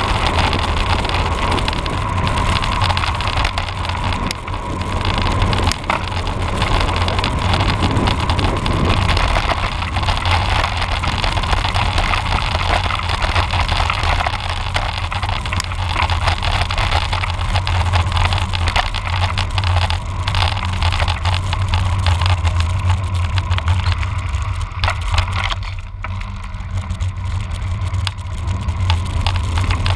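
Steady rushing ride noise from a cross bike on a road: a strong low rumble with wind and tyre noise over it, dipping briefly about four seconds in and again near twenty-six seconds.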